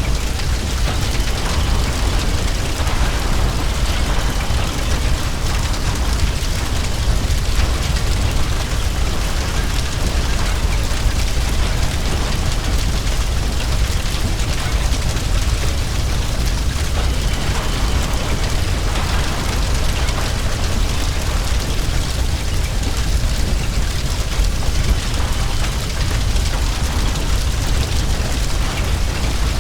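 Heavy blaze in a burning building: a steady, deep roar of fire with dense crackling from burning debris.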